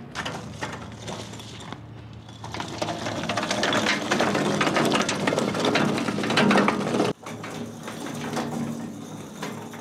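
A rusty steel shop cart rolled on worn, mismatched casters that no longer roll well: a dense clattering rattle of loose metal and rough wheels. It grows louder from about two and a half seconds in, cuts off suddenly about seven seconds in, and a quieter rattle follows.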